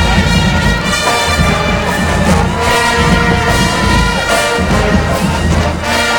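Marching band playing: a brass section of trumpets, trombones and sousaphones in loud held chords over a heavy bass.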